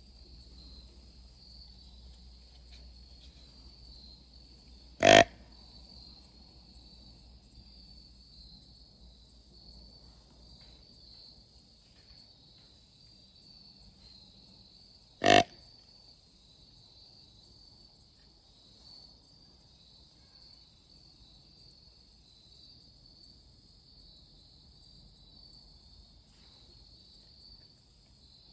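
Crickets and other insects chirring steadily in the woods, with two loud, short sounds about ten seconds apart.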